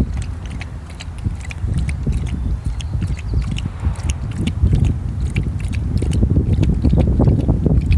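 Low, uneven rumble of wind on the microphone, with irregular light clicks over it. A dog lapping water from a metal bowl near the start.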